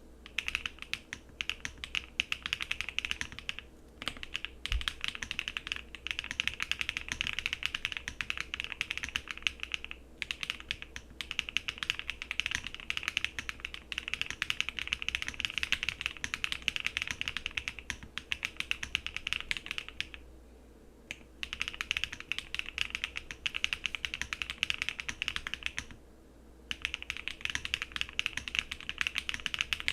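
Luminkey 65 mechanical keyboard with HMX Emo switches, KEYBYELAB keycaps and no plate foam, typed on quickly in long runs of key clicks, with about four short pauses.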